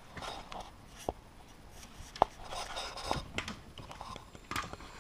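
Plastic parts of a vertical blind carrier being worked by hand in the headrail: scattered light clicks and rubbing as the small comb gear is pressed into the carrier, with one sharp click a little past two seconds in.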